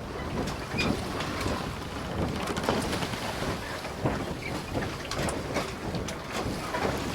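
Wind buffeting the microphone over a steady rush of noise, with irregular sharp knocks and clatter scattered throughout.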